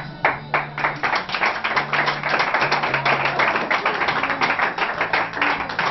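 Church congregation clapping: a few separate claps that within a second build into dense, continuous applause.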